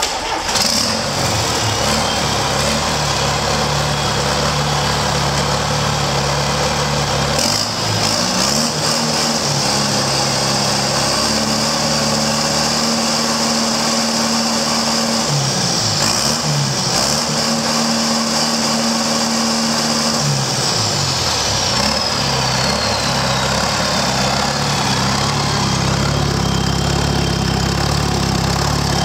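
John Deere 4276 four-cylinder turbo diesel engine on a run stand, running. Its speed rises about seven seconds in, dips briefly around fifteen seconds, and falls back to idle about twenty seconds in, as the turbocharger's high whine slides down in pitch while it spools down.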